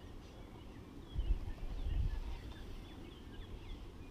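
Small birds chirping and twittering in quick short notes. About a second in, a low rumble on the microphone lasts about a second and is the loudest sound.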